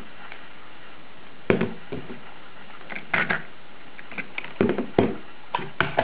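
Scattered sharp plastic knocks and taps, about a dozen of them, as a 3x3 Rubik's cube and a speed timer are handled and set down on a table, over a steady hiss.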